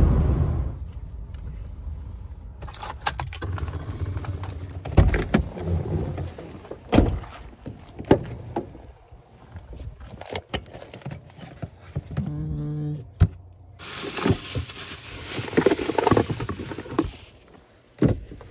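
Clicks, knocks and rustling from a pickup truck's doors and gear being handled, with a short steady hum about twelve seconds in and a longer rushing noise a little later.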